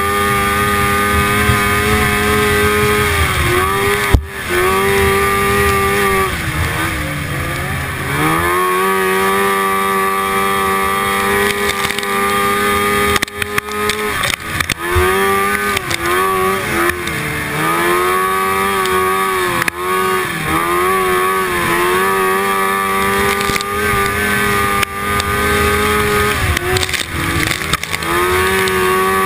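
1974 Rupp Nitro snowmobile's two-stroke engine running at high revs in a race, heard from on board the sled. Its pitch dips several times as the throttle is eased and climbs straight back as it reopens. A single sharp knock comes about four seconds in.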